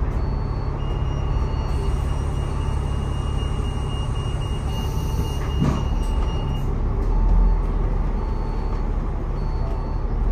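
Steady low rumble of a moving vehicle, heard on board. A faint high steady tone runs for a few seconds, and there is a single knock a little over halfway through.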